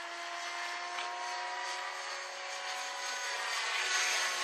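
Radio-controlled scale Airwolf helicopter in flight overhead: a steady whine from its motor and rotors, growing a little louder near the end.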